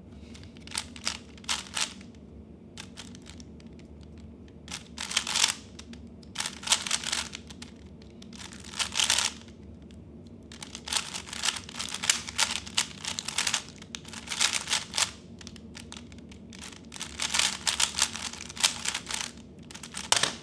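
3x3 Rubik's Cube turned fast during a speed solve: bursts of rapid plastic clicking and clacking, each burst a run of quick turns, broken by short pauses.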